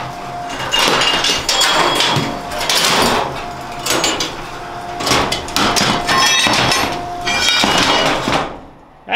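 Steel pieces clanking and clattering against the slats of a vertical CNC plasma table as its electromagnets switch on and off under the moving gantry. The clanks come in repeated bursts with a metallic ring. A steady whine from the gantry's motion comes and goes between them. The noise dies away near the end.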